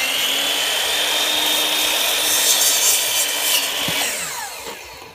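Electric compound miter saw running at full speed with a steady high whine, its blade cutting through whole whitefish. A little under four seconds in it is switched off and winds down in a falling whine.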